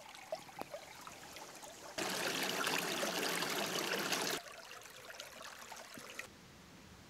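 Shallow creek water trickling and running over stones, with a few faint ticks in the first two seconds. The flow is much louder for a couple of seconds in the middle, then drops back and fades almost away near the end.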